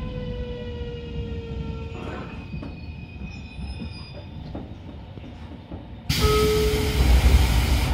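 Electric train motor car (JR Kyushu 811 series) braking to a stop: the whine of its traction motors falls slowly in pitch and fades out about two seconds in, followed by a few faint clunks. About six seconds in, a sudden loud hiss of compressed air starts and runs on, with a brief tone in it.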